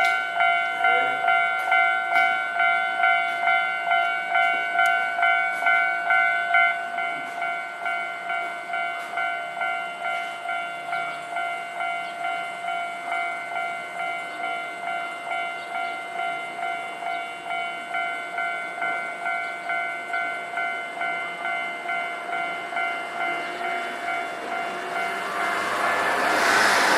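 Electronic level-crossing warning bell at a Japanese railway crossing ringing steadily at about two strokes a second, a little quieter from about seven seconds in. Near the end an approaching train's rumble rises over it.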